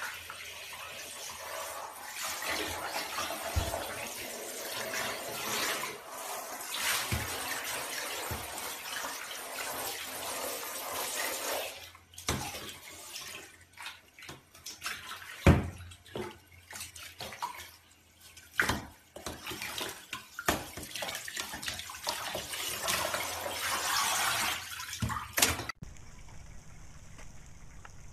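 Water spraying from a handheld shower head onto a cat in a bathtub, steady for about twelve seconds, then in short spurts broken by a few sharp knocks against the tub. It stops abruptly near the end.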